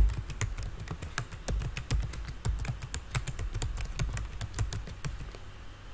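Computer keyboard typing: quick, uneven key clicks, several a second, as a long password is entered at an SSH password prompt.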